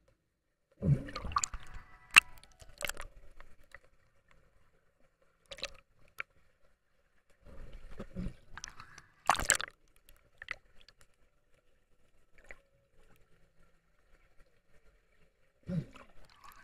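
Water sounds picked up by a camera underwater in a swimming pool: gurgling and sloshing with sharp clicks and knocks in irregular bunches, separated by quiet gaps, the loudest about nine and a half seconds in.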